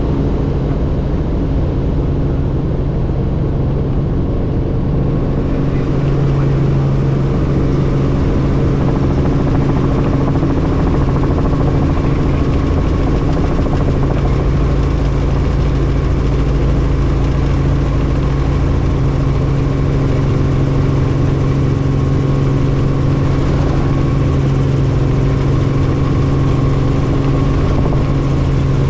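Helicopter in flight: a steady drone of rotor and turbine with a constant low hum, growing slightly louder about six seconds in.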